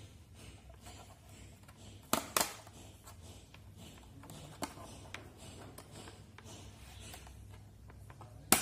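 Small clicks and taps of a screwdriver and screws being worked out of a laptop's plastic bottom cover, with two sharp clicks about two seconds in and another near the end, over a low steady hum.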